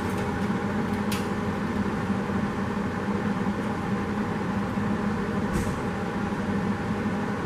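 Electric welder arc running steadily on 18-gauge sheet steel, a continuous crackling buzz as a new panel is welded in.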